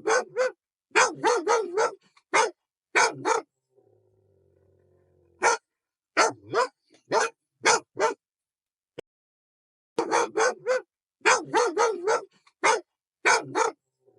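Dog barking in three runs of quick, repeated barks, with short pauses between the runs.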